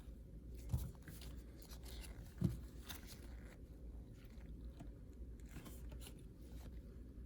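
Faint rustling and crinkling of trading cards and pack wrappers being handled, with two soft knocks about a second and two and a half seconds in.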